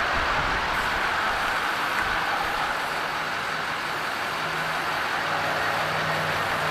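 Steady background noise of motor vehicles, with a low engine hum setting in about four seconds in.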